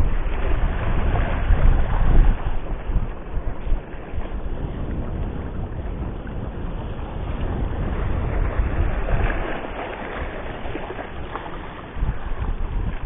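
Wind buffeting the camera microphone in uneven gusts, over the wash of sea waves against the rocks. The gusts are strongest in the first few seconds and pick up again near the end.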